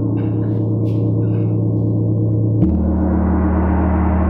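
A 40-inch chao gong ringing with a deep, sustained, many-toned hum. About two and a half seconds in there is a sharp knock, and the ring changes to a deeper, fuller and brighter swell.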